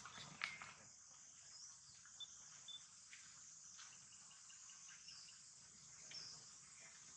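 Faint, steady high-pitched drone of chirring insects, with a few soft clicks, one about half a second in.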